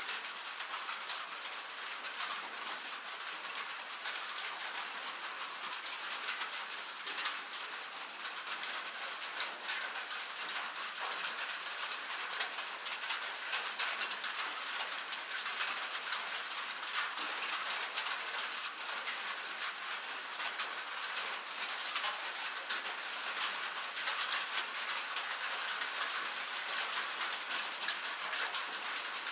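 Steady rain pattering on a metal roof: a dense, even spatter of many small drop impacts with a bright, tinny edge.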